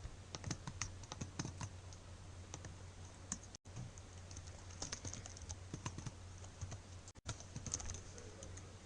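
Computer keyboard typing: irregular quick key clicks, over a steady low electrical hum.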